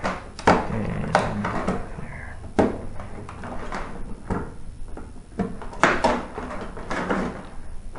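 Clicks and scraping from a straightened paper clip being worked into a tanning-bed lamp holder's release slot while the wire is tugged to free it. There are several separate sharp clicks, the loudest about half a second in and just before six seconds.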